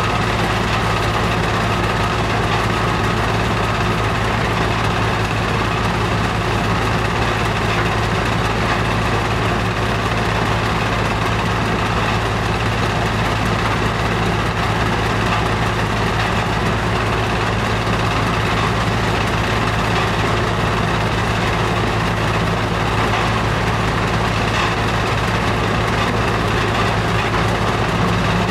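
Powerscreen Chieftain 1700 mobile screening plant running steadily while screening material, its diesel engine giving a constant low hum.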